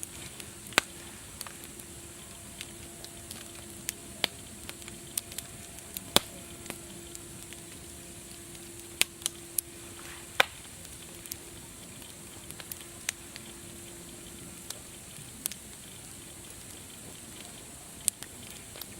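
Wood fire crackling: a steady hiss with irregular sharp pops and snaps, several of them louder, one about six seconds in and a cluster around nine to ten seconds.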